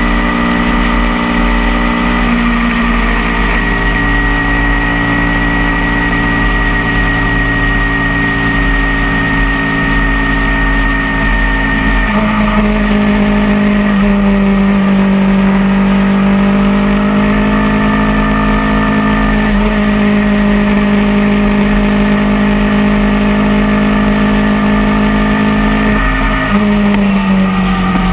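Motorcycle engine running steadily at cruising speed, heard from on the bike. About twelve seconds in the engine note shifts and gets a little louder, and it starts to drop near the end.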